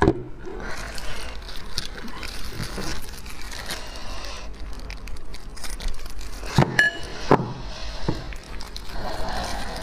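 Close-miked crackling and crinkling with scattered small clicks, the sounds of eating and handling food or its wrapper. Two sharper clicks come about two-thirds of the way through.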